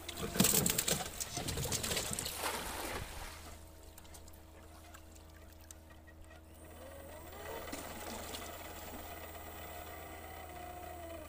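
A cast net being thrown: a swish and a spray of water as the net spreads and its weighted rim splashes into the river, lasting about three seconds. Later a faint steady tone slowly rises in pitch.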